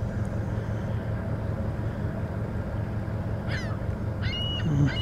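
Seagulls calling, a run of short squawks starting about three and a half seconds in and repeating to the end, over a steady low hum.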